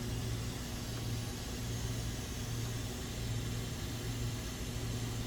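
Quick 861DW hot air rework station blowing a steady hiss of air through its open, nozzle-less outlet while it preheats a laptop circuit board. A steady low hum sits beneath the hiss.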